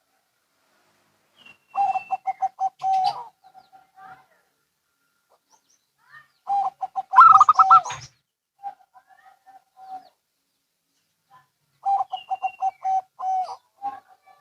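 Zebra doves (perkutut) cooing: three bouts of quick, staccato rippling coos, each a few seconds apart. The middle bout is the loudest, with higher notes over it, and fainter single coos trail between the bouts.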